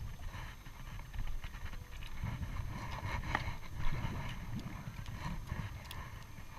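Scattered light knocks and taps as a caught fish and a spinning rod are handled on a small boat's deck, busiest in the middle, over a low steady rumble.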